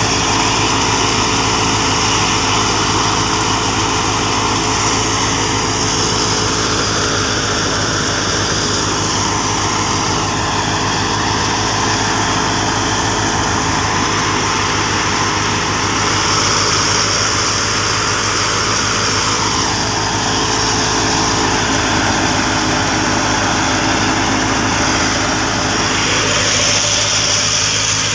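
Tractor engine running steadily under load, driving a wheat thresher whose machinery runs along with it. It makes a steady hum with a high hiss on top that swells twice, about midway and near the end.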